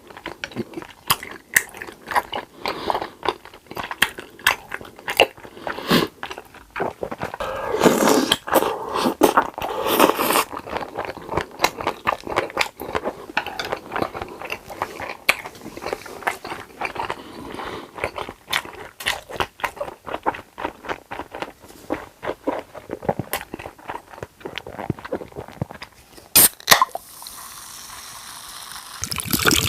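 Close-miked eating: repeated crunching bites and chewing of crisp fried food, with wet mouth sounds between the crunches. The chewing settles to a quieter steady stretch near the end.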